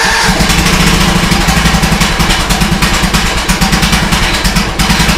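Troy-Bilt riding lawn mower engine running steadily just after catching on the first try, started from cold with no choke, with a brief dip in level about five seconds in.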